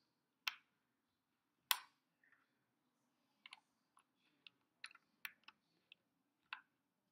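Small plastic Lego bricks clicking as they are handled and pressed together by hand: about ten short, sharp clicks at uneven intervals, the loudest a little under two seconds in.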